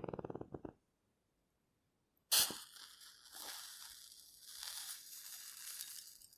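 A short crackling rattle fades out under a second in. About two seconds in, a wooden match is struck with a sharp rasp and flares, then burns with an uneven hiss for about four seconds.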